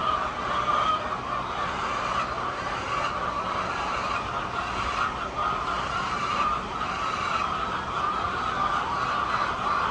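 A large flock of hens calling all at once: a continuous, dense din of overlapping clucks with no pauses.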